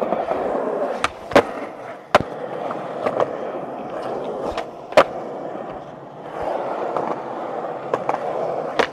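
Skateboard wheels rolling across an old, cracked tennis-court surface, with several sharp clacks and knocks of the board, the loudest about one and a half and five seconds in.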